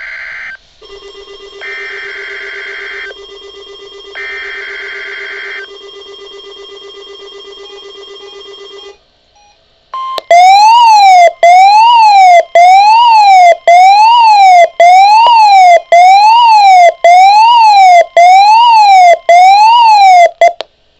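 Electronic emergency-alert tones from a weather radio test: short warbling data bursts over a steady electronic beep, then a loud electronic siren wailing up and down rapidly for about ten seconds before cutting off.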